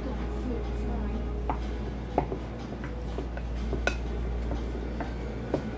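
Scattered light clicks and taps of food preparation at a table: a knife on a thin plastic cutting board while cheese slices are cut, and a spatula working in a glass mixing bowl of ground beef, about one tap a second.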